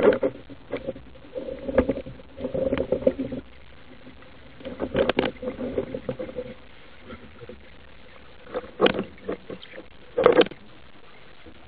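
Muffled underwater knocks and rattles from a speargun, its shaft and line, with a speared white seabream struggling on the line. The knocks come in irregular clusters, with a few sharper single bangs near the end.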